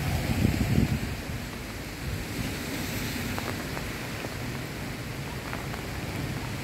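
Storm wind gusting through trees, leaves and branches rustling in a steady rushing wash, with wind buffeting the microphone as a low rumble in the first second or so.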